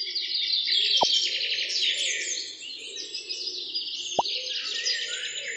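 Many birds chirping busily, laid over with two short cartoon 'plop' sound effects that glide downward, about a second in and near the end, each matching a toy pomegranate being dropped into a toy trailer.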